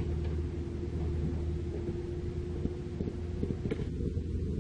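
Caterpillar mini excavator's diesel engine running steadily with a low rumble and a held tone, as its bucket dumps soil and broken rock into a dump truck's bed. A handful of short knocks come in a cluster past the middle.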